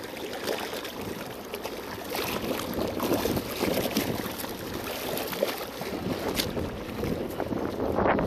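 Water sloshing and splashing unevenly, with wind on the microphone and a louder rush near the end.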